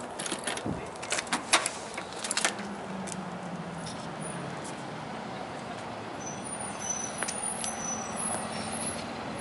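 A few sharp clicks and taps in the first two and a half seconds as wires and a multimeter are handled, then the steady low hum of a vehicle engine in the background, its pitch dipping slightly about three seconds in.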